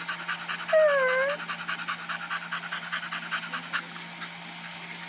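A puppy panting and sniffing rapidly close to the microphone, several quick breaths a second. A short pitched call that dips and rises comes about a second in.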